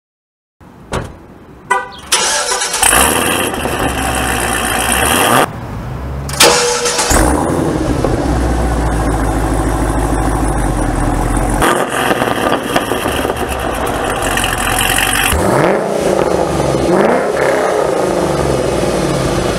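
Cadillac CTS-V V8, fitted with Stainless Works long-tube headers and a Corsa sport exhaust, starting up twice. The starter cranks, the engine catches with a loud flare and settles to a steady idle, first without and then with added resonators. Near the end it is revved, the pitch rising and falling.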